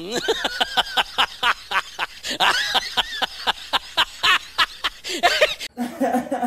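A person laughing hard in rapid 'ha-ha' bursts, about five or six a second, that stop abruptly near the end. A short snatch of a voice follows.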